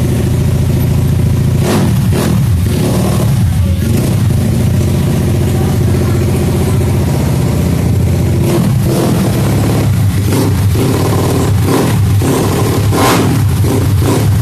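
A customised scooter's engine running loudly, with repeated short throttle blips, more of them in the second half.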